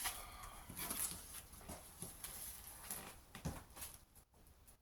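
A cardboard parcel being handled and opened: scattered rustles, scrapes and light knocks of cardboard and packaging.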